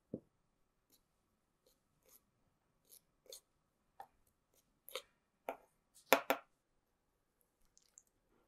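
A soft thump, then a wooden spoon stirring sugar and cinnamon in a small stainless steel cup: a string of short scrapes and taps, the loudest pair about six seconds in.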